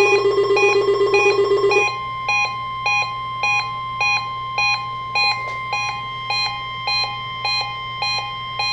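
NOAA Weather Radio warning alarm: the steady 1050 Hz tone that switches on alarm-equipped weather radios, sounding with an electronic alarm beeping about twice a second. A faster-pulsing, lower alarm tone cuts off about two seconds in.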